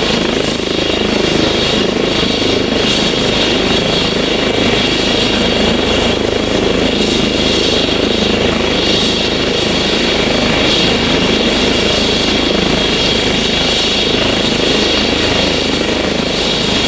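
Airbus H135 twin-turbine helicopter running close by, with a steady high turbine whine over the rotor noise.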